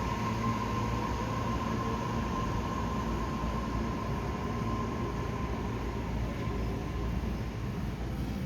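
Tobu 60000 series electric train running at the station: a steady rumble and hiss, with a steady whine that fades out about two thirds of the way through.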